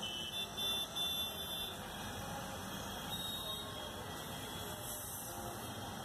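Steady background din of a busy construction site with vehicles. A high-pitched squeal lasts about a second and a half near the start, and shorter, fainter squeals come about three and five seconds in.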